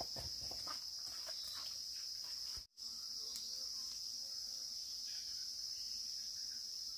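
Steady chorus of insects, a continuous high-pitched buzz that drops out for an instant about two and a half seconds in.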